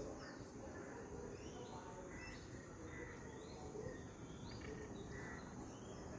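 Faint bird calls: short chirps and whistles at irregular intervals over a steady background hum.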